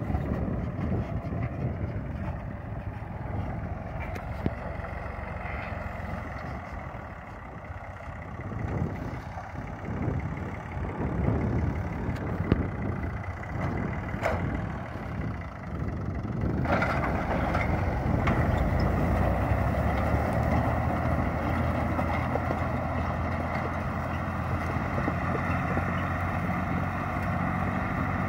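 Massey Ferguson 350 tractor's three-cylinder diesel engine running steadily as it pulls a rotary hay tedder through cut grass. A bit over halfway through, the sound shifts suddenly and a steady hiss joins the engine.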